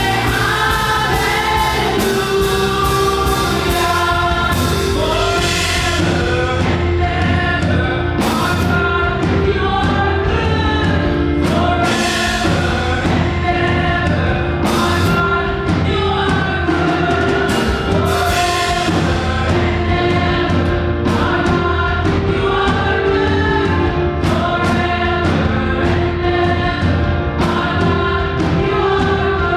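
Live up-tempo gospel worship: a group of voices singing together over a band with steady bass and drum beats.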